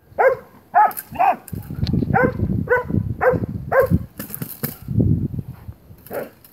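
Young dog barking in a rapid run of short, sharp barks, about seven in the first four seconds and one more near the end, as it lunges on the leash at a helper agitating it in protection training.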